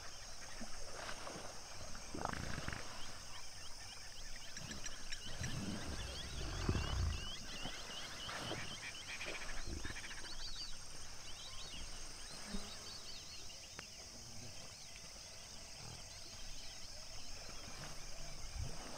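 African hippos in a pod grunting and honking in the water several times, loudest about seven seconds in, over a steady high-pitched chorus.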